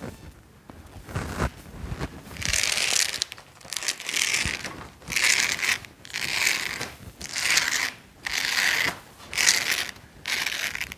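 Access LiteRider soft vinyl roll-up tonneau cover being rolled up by hand, its hook-and-loop side strips pulling off the bed rails. The sound comes as a series of about eight short tearing, crinkling pulls about a second apart.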